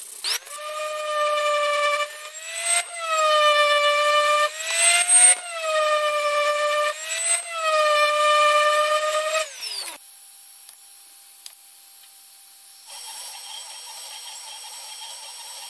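Electric random orbital sander running with a high motor whine. Its pitch dips and recovers several times as it is pressed and eased, then falls as the motor winds down about ten seconds in. A few seconds later a quieter steady whir from a 3D printer begins.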